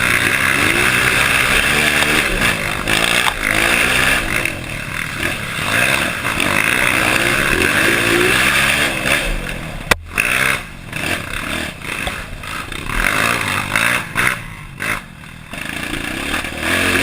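Honda CRF dirt bike engine revving under changing throttle, its pitch rising and falling again and again. A single sharp knock about ten seconds in, after which the engine is quieter and uneven.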